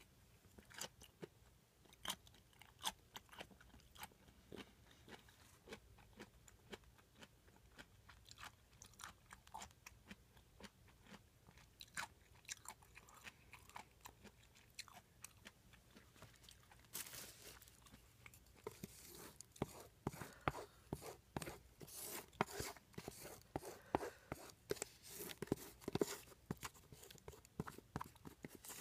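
Close-miked chewing with many wet mouth clicks and smacks, sparse at first and getting busier and louder about two-thirds of the way through.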